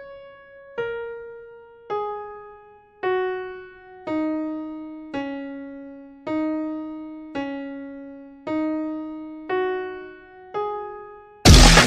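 A slow, sparse keyboard melody, single piano-like notes about one a second, each left to ring and fade, stepping down in pitch and then climbing back up. Near the end a sudden, very loud blast of noise cuts in over it.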